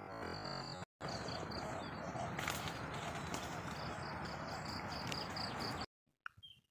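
Outdoor rural ambience: a steady hiss with a high, pulsing animal call repeating several times a second. It cuts to near silence about six seconds in, leaving a few faint clicks.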